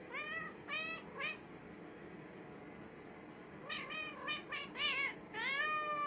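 A cat meowing: three short meows, a pause of about two seconds, then a quicker run of meows ending in a longer, drawn-out one.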